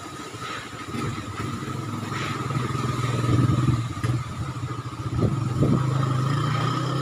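Typhoon wind blowing hard and buffeting the microphone, growing louder about a second in.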